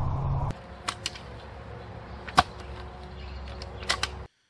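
A post hole digger working a hole in the ground: a few sharp knocks as it strikes the soil, the loudest about two and a half seconds in. Steady outdoor background noise sits under the knocks and drops about half a second in.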